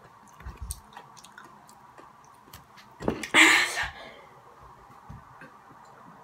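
Mouth noises from a boy eating spicy hot Cheetos: soft chewing clicks and a few low knocks near the start, then one loud breathy exhale about three seconds in.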